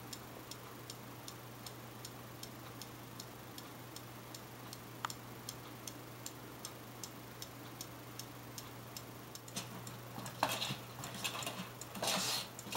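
Steady, even ticking, about three ticks a second, over a low hum. In the last few seconds, louder scratchy rubbing and tapping as a kitten paws at a television screen.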